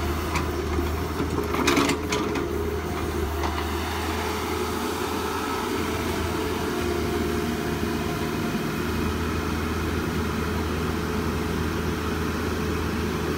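An engine running steadily at idle, a constant low hum with a held tone above it, with a few light clicks and knocks in the first couple of seconds.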